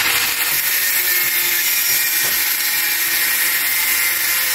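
Handheld angle grinder with an abrasive disc cutting into a metal TV frame rail: a steady, high-pitched grinding of disc on metal.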